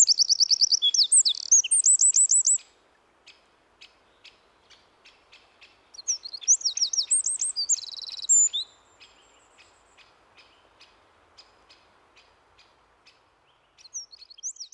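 Eurasian wren singing: a loud, very high song of fast trills and whistled notes that breaks off about two and a half seconds in. A second song follows at about six seconds and runs for nearly three seconds, and another begins near the end.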